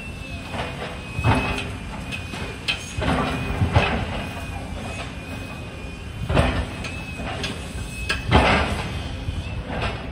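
Demolition excavators working a rubble pile: diesel engines running under a string of irregular scraping and crashing as broken concrete and steel are grabbed and dropped, with four or five loud crashes.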